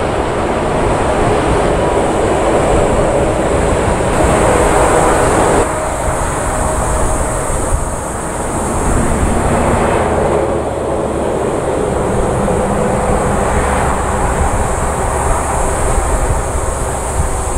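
Boeing 747-400 four-engine jet noise, a loud steady rumble close by. About six seconds in the sound changes abruptly to a second 747 on final approach, its jet noise building again a few seconds later.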